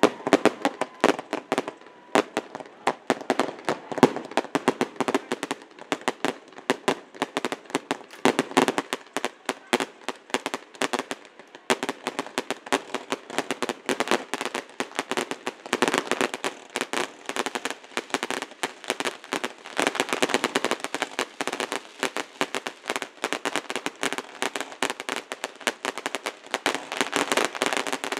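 Fireworks display with aerial shells bursting in quick succession: a dense, unbroken run of bangs and crackling, several reports a second.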